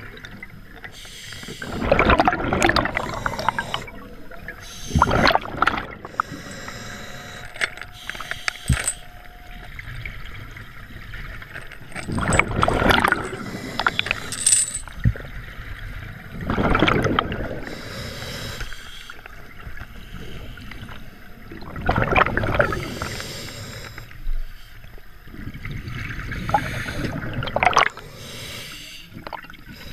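Scuba diver breathing through a regulator underwater: about six loud bursts of exhaled bubbles rush past the microphone every few seconds, over steady water noise.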